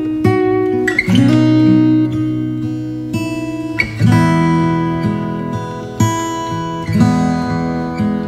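Background music: acoustic guitar strumming held chords, with a new chord struck about every three seconds.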